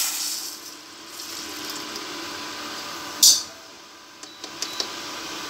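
Water poured from a steel bowl into a steel kadai, the pour tailing off within the first second. Then a lower steady hiss of the liquid in the hot pan, one brief sharp hiss about three seconds in, and a few light clicks near the end.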